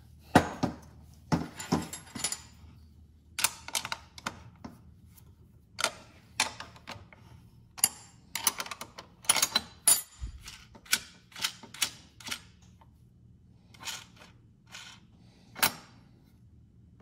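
Irregular metallic clicks and clinks of steel washers and nuts being picked up off a workbench and fitted onto the mounting studs of an aftermarket brake booster.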